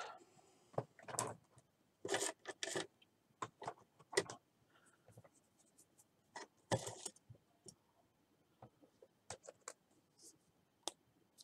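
Scattered small clicks, taps and short rubbing sounds of card-making tools and paper being handled on a work table, at irregular intervals.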